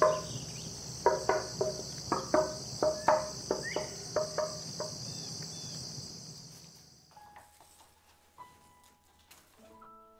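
A quick run of knocks on a dried paulownia plank, each with a short hollow ringing tone, about two to three a second, stopping about five seconds in. Steady cricket chirping runs underneath and fades out about seven seconds in.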